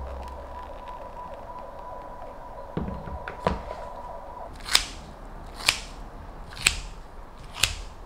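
Kitchen handling sounds: a soft thud as the plastic salad-spinner basket is set back into its bowl, then four sharp clicks about a second apart.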